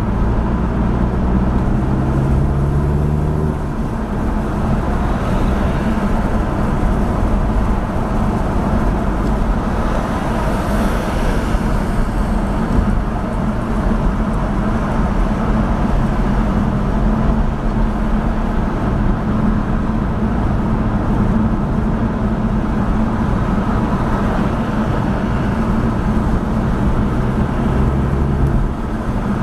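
A moving car's engine and tyre noise, steady throughout. A clearer engine note rises in pitch in the first few seconds and comes back near the end.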